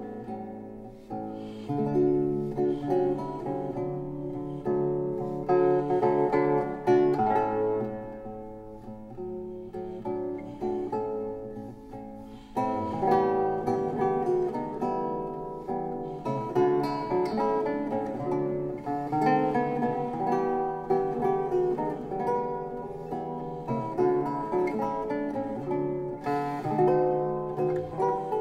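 Background music: an acoustic guitar playing a gentle plucked and strummed tune, with a new, fuller passage coming in about halfway through.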